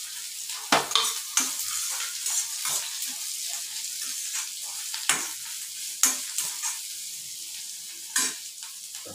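Chopped onions sizzling in hot oil in an iron kadai, gradually easing off. A perforated steel ladle stirs them and scrapes and knocks against the pan several times.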